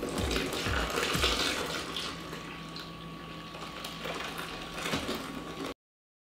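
Milk pouring from a plastic gallon jug in a long stream into a plastic tub, with a low glugging at first, then a steady splashing pour. It cuts off suddenly near the end.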